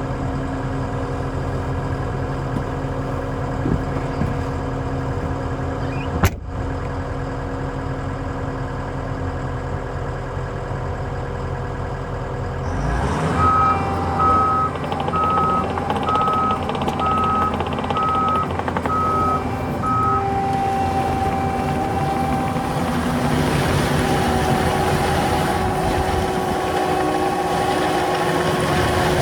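Cat 265 skid steer's diesel engine running steadily, with a single sharp knock about six seconds in. About halfway through the engine picks up under load and its reversing alarm beeps about once a second, some eight times, as the machine backs up.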